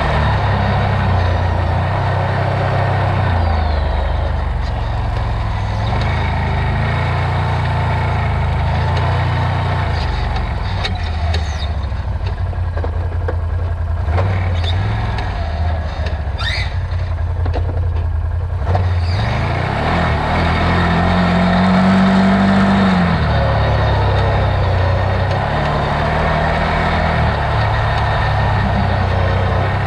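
Off-road vehicle's engine running as it drives, its pitch rising and falling with the throttle, climbing to a rev peak about two-thirds of the way through. A few brief high squeaks come in around the middle.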